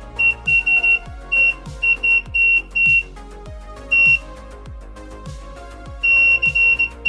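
Active 5 V buzzer of an ESP32 Morse code device beeping out a sent text message in Morse code: a high steady tone in short dits and longer dahs, with a pause of about two seconds past the middle. Soft background music with a regular beat plays underneath.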